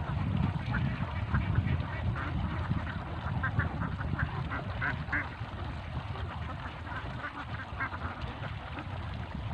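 A flock of itik, Philippine native ducks, quacking: many short overlapping quacks that are busiest around the middle, over a steady low rumble.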